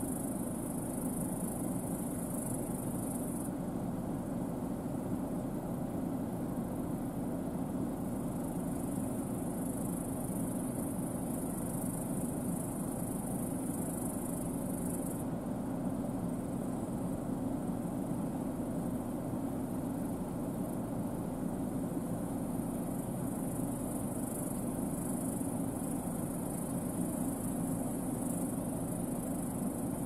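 New Holland CR10.90 twin-rotor combine harvester running steadily while harvesting barley: an even low drone with a steady high hiss over it.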